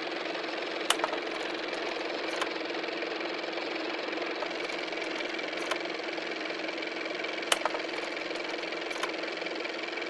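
A steady mechanical whirring hum with sharp clicks every second or two.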